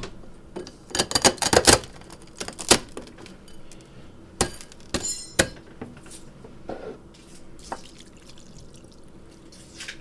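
Water dumped from a measuring cup into a bowl, splashing, with several sharp clinks and knocks of dishware.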